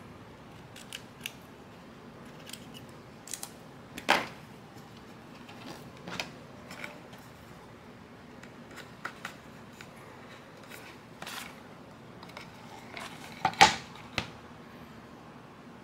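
Hands handling and pressing a self-adhesive vinyl sheet onto the edge of a board: scattered light clicks and crinkles, with a louder click about four seconds in and a cluster of louder ones near the end.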